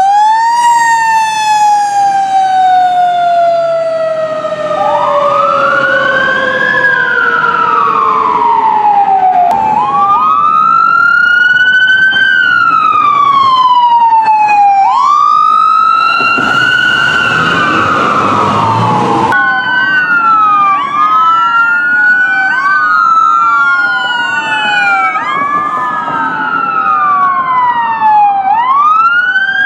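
Emergency vehicle sirens wailing: at first one long wail that rises and then falls slowly over several seconds, then repeated rising-and-falling wails. From about two-thirds of the way in, several sirens overlap in quicker cycles, with a few seconds of rushing noise in the middle.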